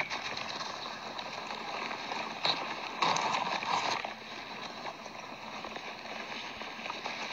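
A crowd of vultures feeding at a carcass: wings flapping and bodies scuffling in dry grass and dust close to the microphone, with a louder burst of rustling about three seconds in that lasts about a second.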